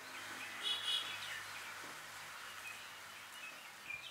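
Outdoor garden ambience: a steady hiss of background noise with a short bird call about a second in and a few faint chirps later.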